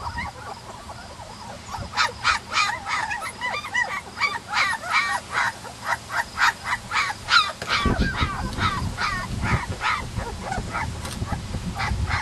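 Three-week-old German Shepherd puppies squealing and crying, many short high-pitched cries in quick succession starting about two seconds in. A low rumble joins from about eight seconds in.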